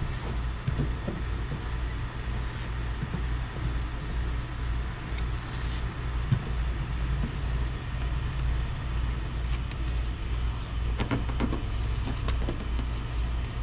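A few short, soft rasps as the red backing liner is peeled off double-sided tape behind a plastic bumper trim piece, over a steady low rumble and a faint steady high whine.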